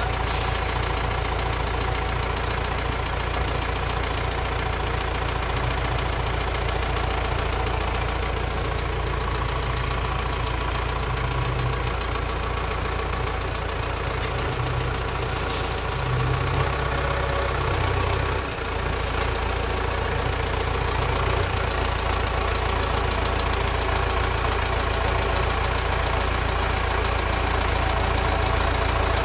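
Red farm tractor's engine idling steadily, with a short sharp click about halfway through.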